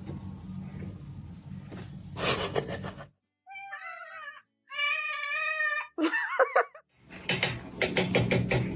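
A cat meowing: two drawn-out meows about three and a half seconds in, the second louder and longer, then a shorter wavering cry.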